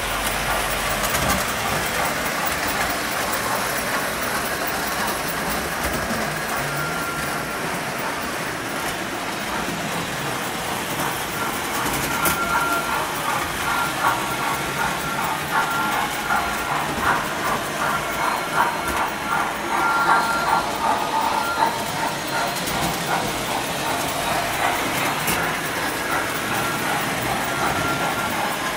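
Electric O-gauge model train running on three-rail track: a steady running noise that turns louder and more rhythmic for several seconds from about the middle.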